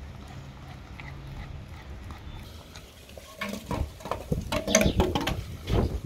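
A dog mouthing and chewing a raw turkey wing on a tile floor: a run of clicky, crackling crunches begins about halfway through, loudest near the end.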